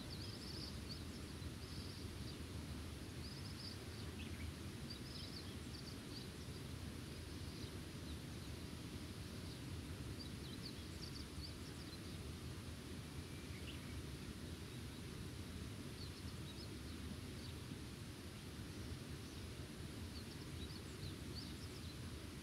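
Countryside outdoor ambience: a steady low rumble of background noise with short, high bird chirps recurring every second or two.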